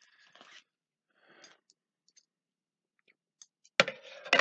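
A couple of soft breaths, then near the end a loud burst of sharp crinkling and clicks: a plastic snack-bar wrapper being handled.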